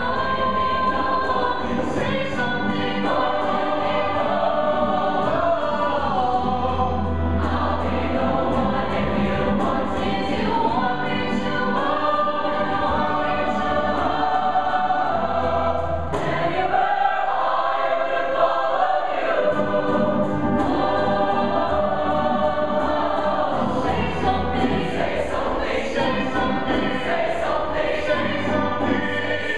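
Large mixed show choir singing a song in full harmony, with instrumental backing; the low accompaniment drops out for a couple of seconds past the middle.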